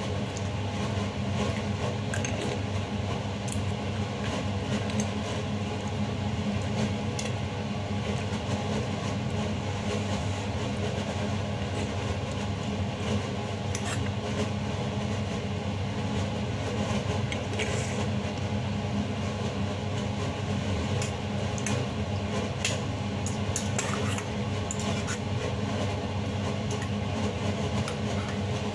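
A steady low mechanical hum, like a fan or a running appliance, runs throughout. Scattered light clinks and scrapes of a fork and spoon against a stainless-steel pot sound over it.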